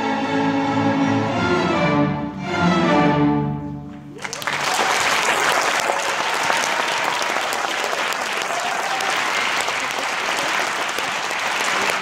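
Student string orchestra of violins and cellos holding the closing chords of a piece, swelling once more and dying away about four seconds in. Audience applause then breaks out and carries on steadily.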